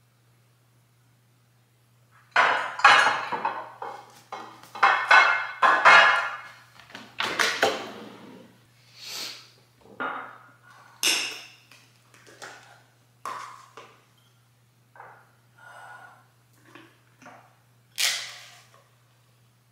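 Small ceramic bowls and their lids being set down, shifted and stacked on a stone countertop: a run of clinks and knocks with a short ring, busiest in the first several seconds and sparser later, ending with one sharp clink near the end.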